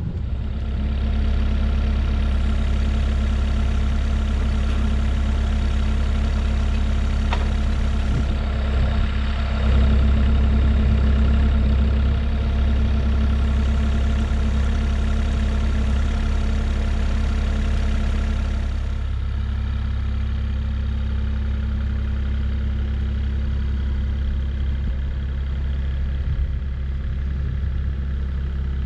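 Kubota KX040 mini excavator's diesel engine running steadily as the machine carries a beam on its forks, a low, even hum that drops slightly in loudness about two-thirds of the way through.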